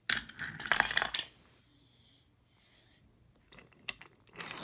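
Wooden toy railway engines and track pieces clattering as they are handled on the track: a burst of rattling clicks lasting about a second, a pause, then a few more clicks near the end.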